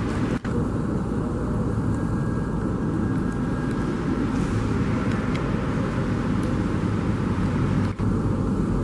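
Steady low rumble of a Boeing 787-9 jet airliner on the apron, heard through the terminal's windows, cutting out briefly twice.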